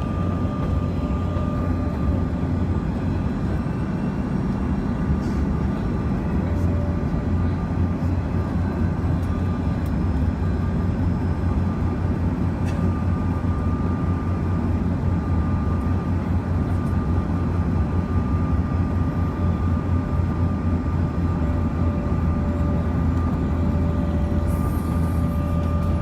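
Cabin noise inside a Bombardier CRJ-200 in flight on approach: the rear-mounted GE CF34 turbofans running steadily, with a thin high whine over a deep rumble of engine and airflow noise.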